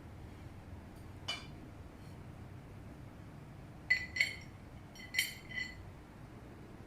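Plates of a tiered cake stand clinking against each other as they are handled: a faint click, then four short ringing clinks in two pairs.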